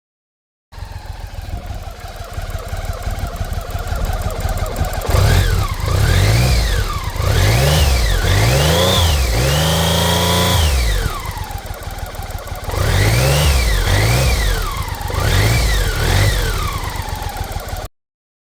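1994 BMW K75 inline three-cylinder engine idling, then revved in a series of quick blips, with one rev held briefly before it drops back to idle and is blipped several more times. The sound cuts in about a second in and stops abruptly near the end.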